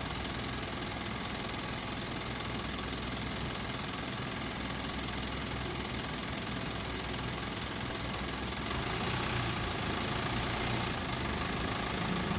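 Truck engine idling steadily, growing a little louder about nine seconds in.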